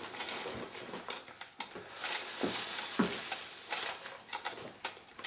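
Hand-cranked wooden-box automaton being worked, its thin corrugated metal sheet swinging with a crinkly rustle over irregular small clicks and rattles from the mechanism, the rustle thickening about two seconds in.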